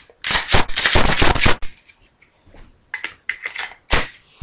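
Metal-and-polymer clicking and rattling of a semi-automatic pistol being handled and put back together. A dense run of loud clicks comes over the first second and a half, then a few lighter clicks, then one sharp snap near the end.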